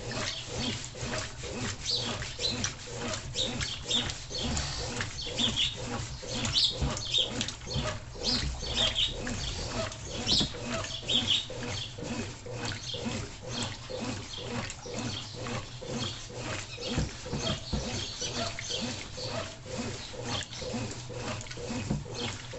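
Consul Super Cargo 10 kg (CWL10A) washing machine agitating a mixed load: a steady motor hum under a rapid, rhythmic churning of water and clothes.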